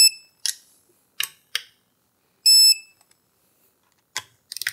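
Digital torque wrench beeping as case bolts reach their set torque: short high electronic beeps, one just at the start and another about two and a half seconds in, with a few sharp clicks from the tool and bolts between them.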